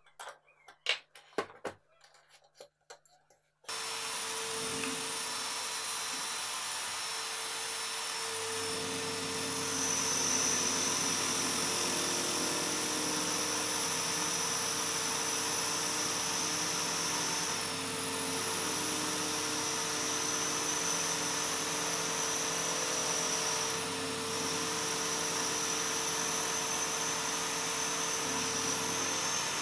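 Metal clinks as the drill chuck is worked on the sanding drum's shaft, then about four seconds in a benchtop drill press starts abruptly and runs steadily with a whine, spinning a homemade sanding drum. Wood is pressed against the drum and sanded, the sound growing louder about eight seconds in and dipping briefly twice.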